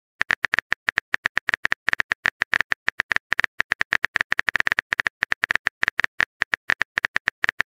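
Phone keyboard typing clicks from a texting-story app, one short click per letter, going rapidly at about eight a second with a couple of brief pauses as a message is typed out.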